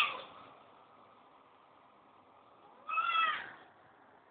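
Siamese cat meowing: the tail of one meow fades out at the start, then one more short meow comes about three seconds in.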